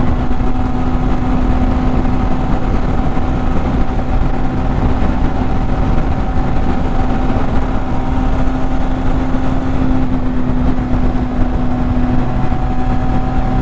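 Benelli TRK 502's 500 cc parallel-twin engine running at steady highway speed, one even note held at constant revs, under a heavy rush of wind and road noise.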